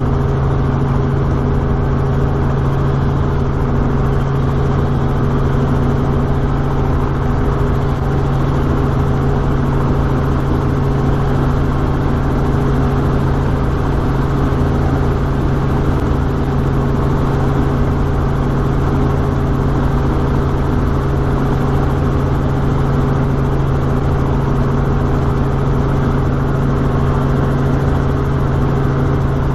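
Robinson R44 helicopter heard from inside its cockpit during takeoff and climb-out: the steady drone of its piston engine and main rotor.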